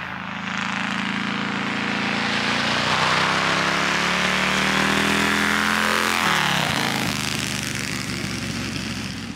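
Motorcycle engine passing by. It grows louder over the first few seconds, its pitch drops sharply about six seconds in as it goes past, and then it fades away.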